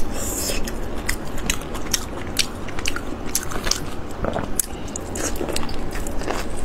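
Close-miked eating: a person biting and chewing food, with many short, irregular wet clicks and smacks of the mouth.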